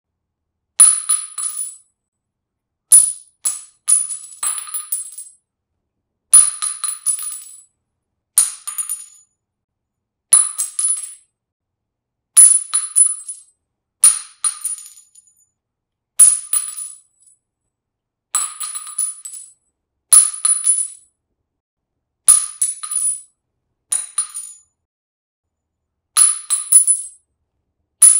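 Spent shell casings dropped one after another onto concrete. Each landing is a bright metallic ping followed by a few quick bouncing clinks that die away, and a new drop comes about every two seconds.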